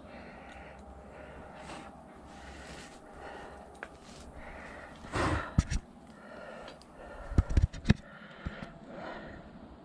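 A man breathing hard in steady, repeated breaths from exertion, with a few loud knocks and thumps about halfway through and again a little later.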